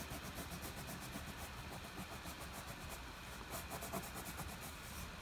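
Red wax crayon rubbed across thick paper in quick back-and-forth strokes: a faint, rapid scratching.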